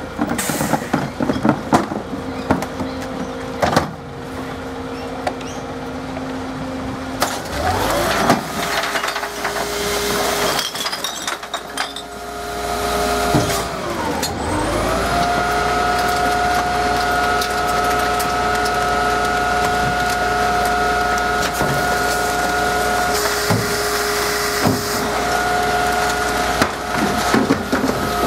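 Rear-loader garbage truck loading a recycling bin: knocks and clatter as the bin is hooked on and emptied into the hopper, then the engine speeds up and the hydraulics whine steadily as the bin lifter and packer work, the pitch dropping briefly and climbing again twice.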